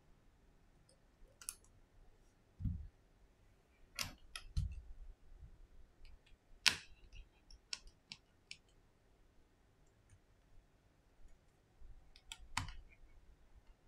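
Scattered small clicks and taps of a precision screwdriver and phone parts on an opened iPhone XS, with a few soft low knocks; the loudest sharp click comes a little past halfway.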